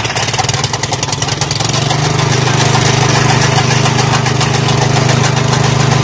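An engine running, its rhythm quickening over the first second or two and then settling into a steady, even run.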